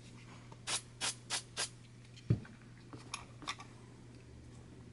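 Four short hissing spurts of silicone spray in about a second, coating the nylon line, then a single low knock and a couple of faint clicks.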